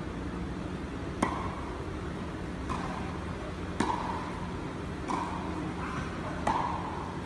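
Tennis rally: five sharp pocks as the ball is struck by rackets and bounces on the court, one about every second and a quarter.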